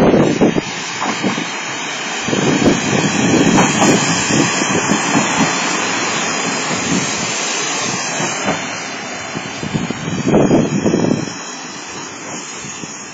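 Trains running close past a station platform: an Ōarai-Kashima Line 6000 series diesel railcar, then a freight train of tank wagons rolling by, a steady loud rumble of wheels on rail, with gusts of wind buffeting the microphone.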